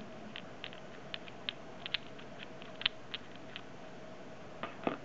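Light, irregular small clicks and scratches of a spool pin removal tool being turned by hand on a Daiwa Steez baitcasting reel spool, driving out the spool pin, with two louder clicks near the end.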